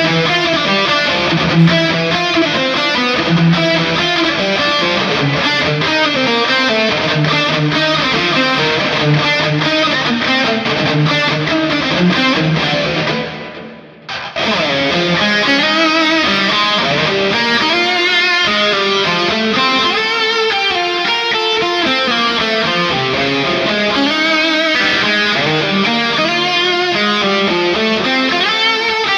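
Ibanez PIA electric guitar recorded direct and played through a software amp and cabinet simulator, running through a string of notes and riffs. About halfway in it fades out, then comes straight back.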